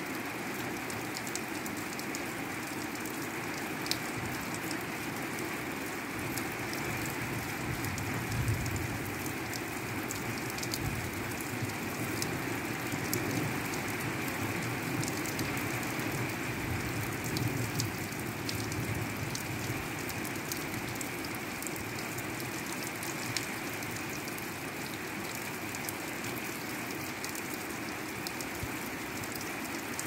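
Steady rain falling at night, with many individual close drops ticking sharply over the even hiss of the downpour.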